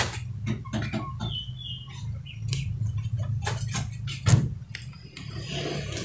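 Irregular sharp clicks and taps over a steady low hum, with a few short high chirps about a second in.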